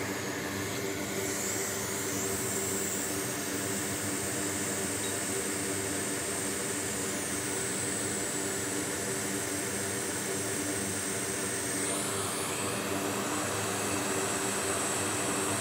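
Hot air rework station blowing a steady hiss of air onto a fuse to reflow its solder. The hiss changes tone twice, about 7 and 12 seconds in.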